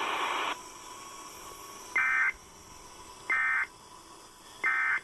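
Emergency Alert System end-of-message data bursts: three short, identical electronic screeches of digital data, about 1.3 s apart. They signal the end of the alert. Before them, a band of static hiss cuts off about half a second in.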